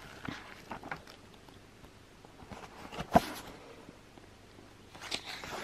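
Pages of a paperback book being riffled and turned, soft paper rustles and small clicks, with one sharp tap about three seconds in, the loudest sound, and a further brief rustle of pages near the end.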